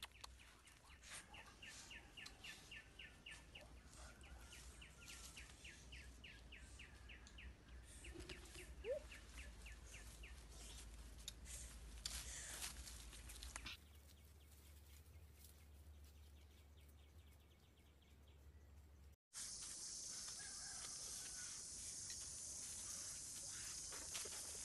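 Faint forest ambience: a quick run of bird chirps and light rustling, then, after a cut, a steady high-pitched insect drone.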